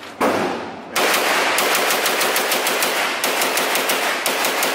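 AK-pattern carbine firing inside an indoor range: one shot, then from about a second in a fast, steady string of shots, each echoing off the range walls.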